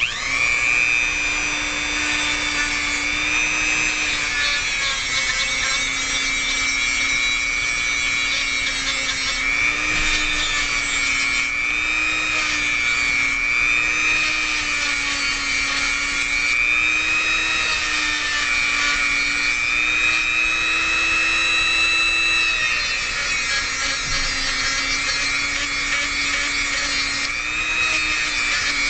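Dremel rotary tool with a sanding attachment spinning up and running at high speed, sanding and buffing a steel lock pick smooth. It makes a steady high whine whose pitch wavers slightly as the tool is pressed against the metal.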